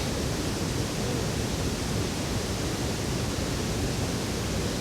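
Steady, even rushing noise, like running water close by.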